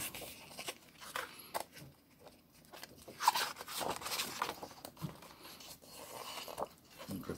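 Rustling and crinkling handling noise with scattered light clicks and knocks, the sharpest click a little past three seconds in, as records and printed items from a collection are handled.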